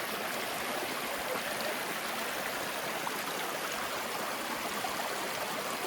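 Steady rush of a stream's water flowing over a small waterfall.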